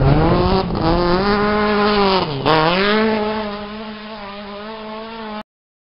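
VW Gol N1 rally car's engine at full throttle as the car passes close by on a gravel stage. A little over two seconds in, the pitch dips sharply and climbs back; it then holds steady and fades as the car pulls away. The sound cuts off suddenly near the end.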